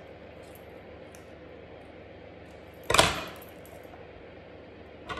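A pair of scissors is set down on a wooden tabletop, making one sharp metallic clatter about three seconds in against quiet room tone.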